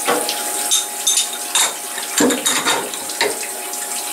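Coolant spraying and splashing inside a mill enclosure, with a series of sharp metal clinks and clatters from a machined part and metal chips being handled.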